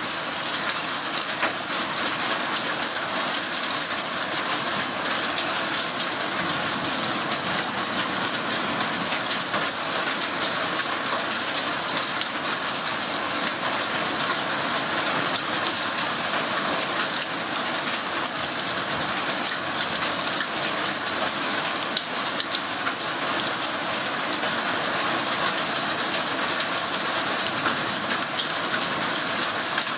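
Hailstorm downpour: hail and rain pelting down steadily, a dense hiss of countless small impacts.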